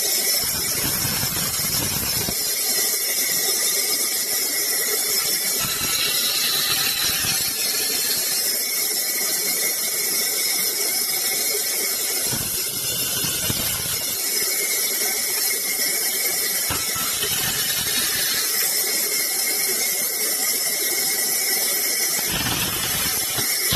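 Sawmill saw cutting through wood: a steady, loud, high-pitched whine and screech that runs on without a break.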